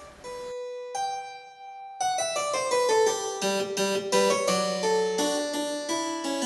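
Harpsichord music: a fugue that opens with two single held notes, then from about two seconds in breaks into many quick interweaving lines.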